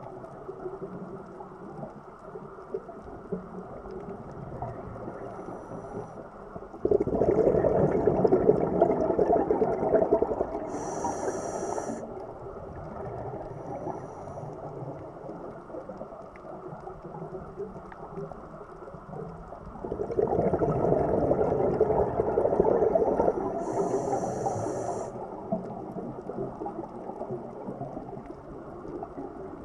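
Scuba diver's breathing heard through an underwater camera housing: two long rushes of exhaled bubbles about thirteen seconds apart, each followed by a brief high hiss, over a steady underwater rush.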